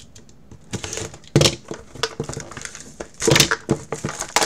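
Plastic shrink wrap on a cardboard trading-card box being slit with a box cutter and torn off, crinkling and crackling in a few sharp bursts, loudest about a second and a half in and again past three seconds.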